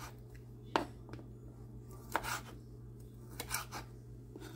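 Kitchen knife slicing boiled chicken offal on a wooden cutting board: about five separate knocks as the blade cuts through and meets the board.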